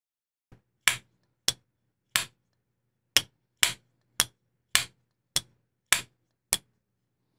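Pro-Tech TR-3 buttonlock folding knife being worked open and shut by hand, giving about ten sharp, single clicks a little over half a second apart, as the newly fitted caged-bearing action is worked in.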